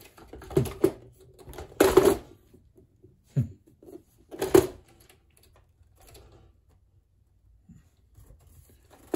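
Several sharp knocks and clacks of hard plastic as a Brother sewing machine's plastic housing is handled and opened, the loudest about two seconds and four and a half seconds in.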